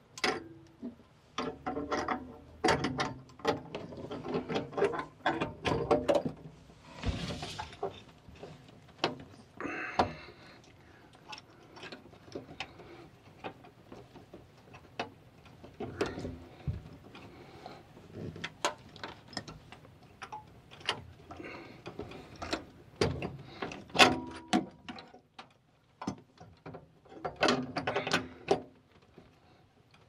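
Irregular clicks, taps and rubbing of brass plumbing fittings being handled and screwed onto a tankless water heater's small tank by hand, with occasional sharper metal knocks.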